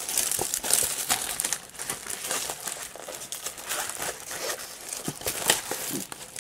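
Clear plastic protective film on a diamond painting canvas crinkling as the canvas is handled and turned over. The sound is a continuous run of irregular crackles.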